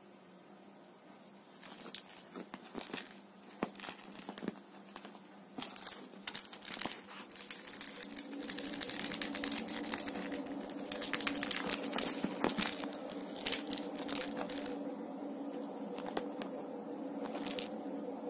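A cat's claws scrabbling and scratching at a woven fabric cover as it rolls and wrestles while playing with a fur toy mouse: scattered sharp scratches and rustles, growing into a dense stretch of scratching and crinkling in the middle and thinning out near the end.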